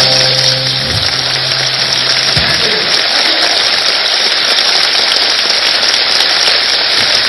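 Live concert audience applauding between songs, with a low held note from the band's amplifiers dying away about two seconds in.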